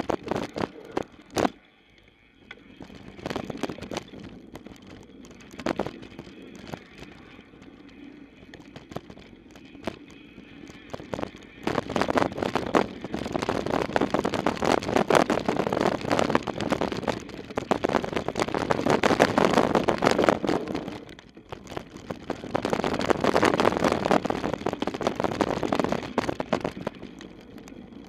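Downhill mountain bike ridden fast down a dirt singletrack: a few sharp knocks over bumps in the first two seconds, then tyres on dirt and the bike rattling over rough ground. The rattling grows loud over two long rough stretches, the first about halfway in and the second near the end.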